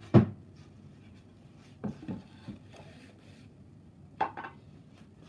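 Objects being handled and set down on a wooden workbench: a loud knock just after the start, a few softer knocks around two seconds in, and a sharper double knock a little past four seconds as a flat board is laid on the bench.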